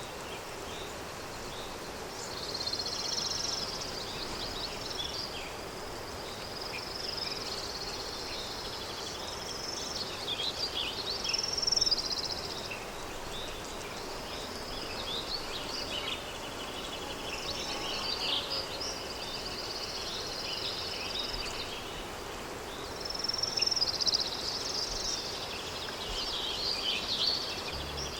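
Rural daytime ambience: small songbirds singing in repeated short phrases of a second or two, over a steady background hiss of wind.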